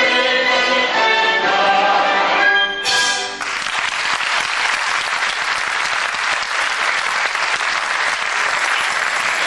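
Theatre orchestra with strings playing the final bars of a stage dance number, cut off about three seconds in by audience applause breaking out and continuing steadily.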